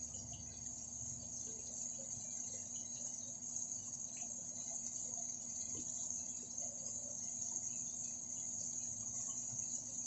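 A steady high-pitched hiss, with faint, scattered taps of a kitchen knife slicing a carrot on a plastic cutting board.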